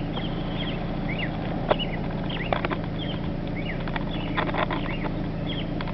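Small birds chirping repeatedly in short, quick notes over a steady low engine hum, with a few sharp clicks.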